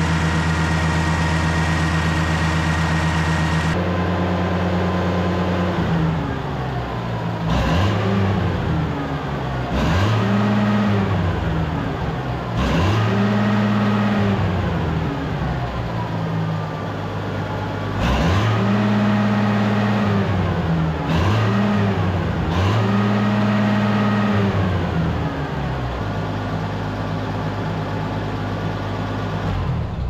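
Oliver 1650 tractor engine running in the shop. It runs steadily at first, then is revved up and let back down about six times, and settles to a steady idle near the end.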